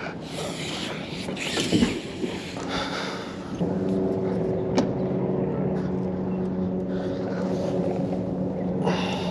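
A motor running at a steady pitch sets in about three and a half seconds in and keeps going, over the rustle of rope being paid out by hand.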